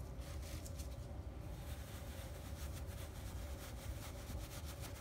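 Paintbrush scrubbing chalk paint into the pile of upholstered fabric: a quick, irregular run of faint scratchy brush strokes.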